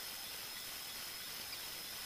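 Steady hiss with a faint, constant high-pitched whine, no distinct events.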